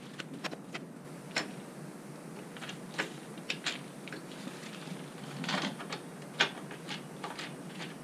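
Irregular sharp metallic clicks and taps of a hex-key tool turning the chain-adjuster bolt at a BMW F850GS rear axle, tightening the drive chain.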